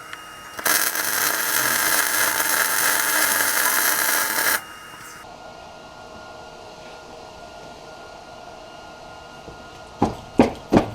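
Garage metalworking tool running: a loud, steady, hissing crackle for about four seconds, then it cuts off, leaving a faint steady hum. Three sharp knocks come near the end.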